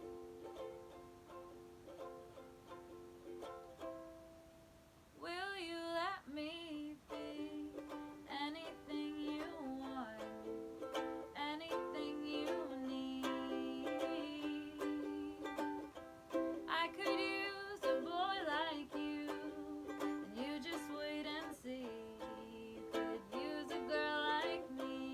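Ukulele accompaniment of an original song, joined by a voice singing about five seconds in.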